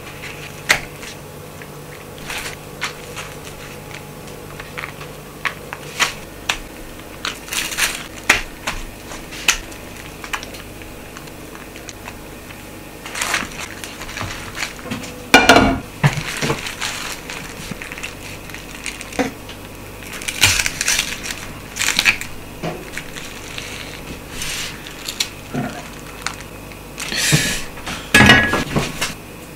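Crisp raw napa cabbage leaves crackling and crunching as they are handled and pressed down onto layers of pork belly on a wooden cutting board, in scattered short bursts, loudest about halfway through and again near the end.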